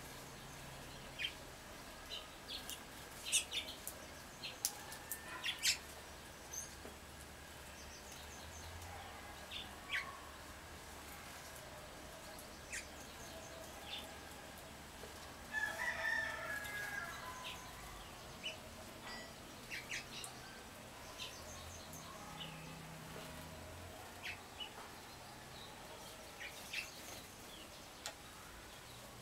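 Small wild birds calling, with short sharp chip notes scattered throughout and a louder, longer call about sixteen seconds in.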